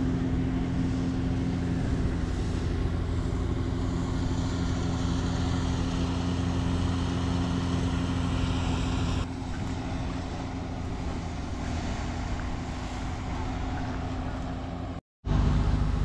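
An engine running at a steady speed, a constant drone. It drops in level about nine seconds in and cuts out briefly near the end.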